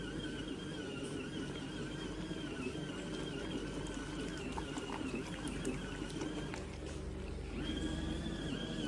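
Small electric motor of a portable mini washing machine running with a steady whine over churning. It stops about seven seconds in and spins back up with a rising whine, as the washer pauses and reverses its wash cycle.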